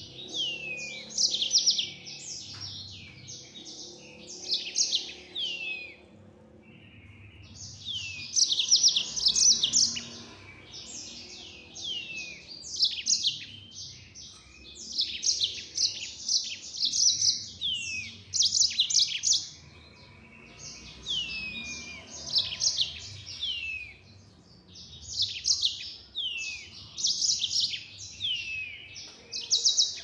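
Yellow-fronted canary singing a fast, high-pitched song in phrases of rapid trills and repeated downward-sweeping notes, with short pauses between phrases.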